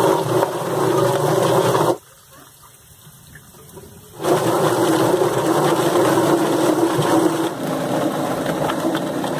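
Electric drum-style chicken plucker running with a steady hum while it plucks a scalded chicken, water washing through the drum. The running drops away abruptly about two seconds in and comes back about two seconds later.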